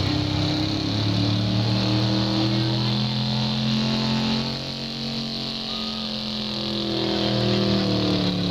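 Pickup truck engine running hard under load as it drags a pulling sled. Its note holds steady, sags and quiets for a couple of seconds around the middle, then climbs again near the end.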